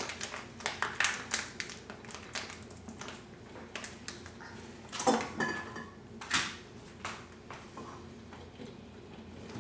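Light, irregular clicks and clatter of small kitchen objects being handled, with a couple of louder knocks about five and six and a half seconds in.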